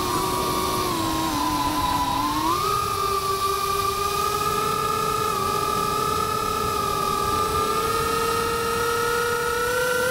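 FPV quadcopter's brushless motors and propellers whining steadily in flight, heard from the drone's own onboard camera. The pitch dips about two seconds in and climbs toward the end as the throttle changes.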